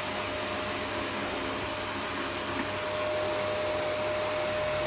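Vacuum cleaner running steadily on a low power setting: a constant motor whine over an even rushing hiss of suction.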